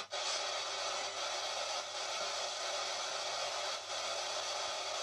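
Steady radio static hiss from a handheld spirit box sweeping through radio frequencies. It dips out briefly at the start and again near four seconds in.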